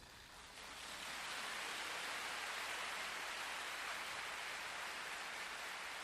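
Audience applauding in a concert hall, swelling over the first second after the music stops and then holding steady.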